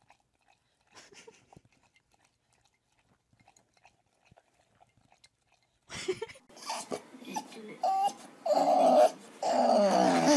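Near silence for the first six seconds or so. Then a bulldog starts growling and grumbling in drawn-out, wavering tones, loudest near the end.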